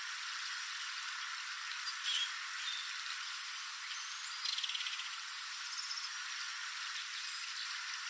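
Belted kingfisher giving a short, dry rattle call of rapid clicks about four and a half seconds in, over a steady outdoor hiss, with a brief faint note shortly after two seconds.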